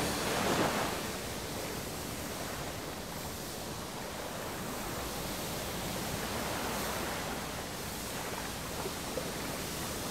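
Sea surf: waves breaking and washing on the shore, a steady rushing noise that swells with a louder surge about half a second in and a softer one around seven seconds.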